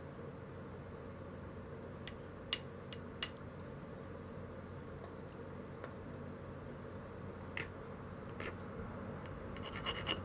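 Pressure flaking a stone biface knife with a pointed flaker: scattered sharp clicks as small flakes snap off the edge, the loudest about three seconds in, and a quick run of fine scratchy ticks near the end, over a steady low hum.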